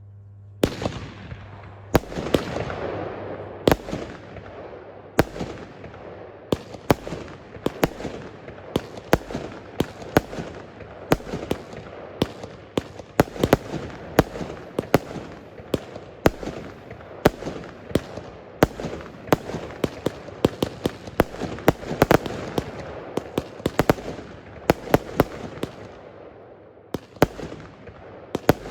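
Consumer firework battery going off: a rapid, irregular series of sharp bangs, about one to two a second, over continuous crackling. It starts less than a second in.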